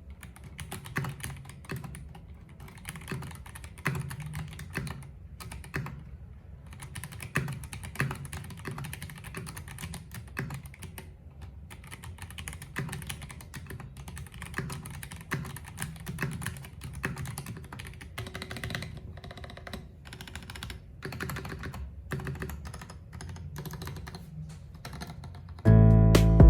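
Typing on a Keycool KC84 Pro hot-swap mechanical keyboard with dye-sub keycaps: a steady, uneven run of key clacks as keys are pressed and released. Near the end, louder guitar music cuts in.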